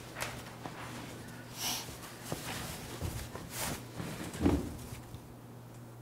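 Soft rustling of clothing as a bathrobe is taken off, with two short breaths through the nose and a dull thump about four and a half seconds in, over a low steady hum of room tone.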